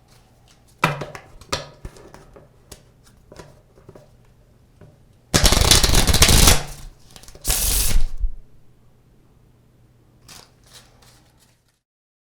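Playing cards being shuffled: a few sharp taps and flicks, then a loud flurry of cards shuffling for just over a second, a second shorter flurry, and a few light taps. A faint steady hum lies underneath until the sound cuts off near the end.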